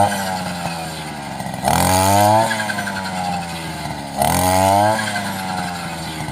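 Petrol brush cutter engine harvesting rice, revving up and easing off repeatedly: the pitch jumps up twice, about two and a half seconds apart, and sinks after each.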